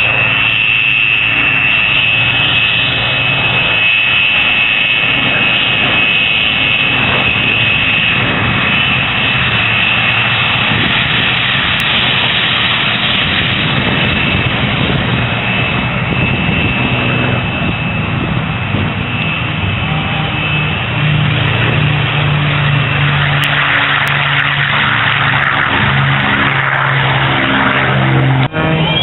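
North American F-86 Sabre's jet engine running as the fighter taxis: a loud, steady rush with a high whine over it that fades after about twelve seconds. A lower steady hum comes in during the last several seconds.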